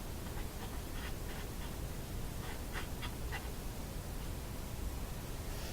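Steady hiss and low hum from an old tube radio under alignment, with a few faint short sounds in the first half.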